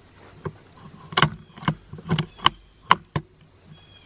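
A quick, irregular run of about seven sharp clicks and knocks close to the microphone: handling noise from gear being moved.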